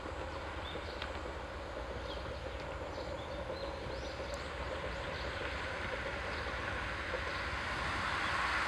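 Diesel railcar approaching: a steady rumbling noise that grows louder over the last couple of seconds, with a few faint bird chirps above it.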